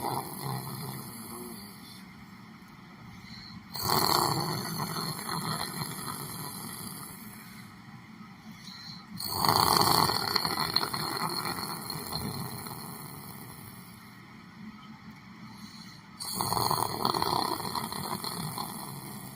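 A person snoring in their sleep: loud snores about every six seconds, each starting suddenly and fading over a few seconds.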